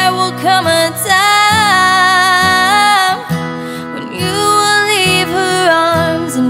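A young woman singing a ballad, holding two long notes with vibrato over an instrumental accompaniment.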